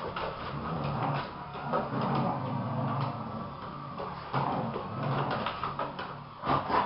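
Dogs play-fighting on a wooden floor: low, continuous play growling with scuffling and claws clicking and knocking on the floorboards, a louder flurry of knocks near the end.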